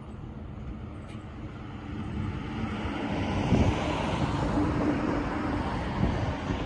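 A vehicle passing, its noise and low hum growing louder from about two seconds in.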